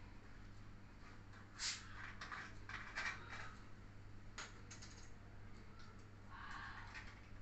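Faint clicks and taps as a plastic soda bottle is handled and its cap twisted off. About six seconds in comes a soft hiss as soda water is poured into a glass.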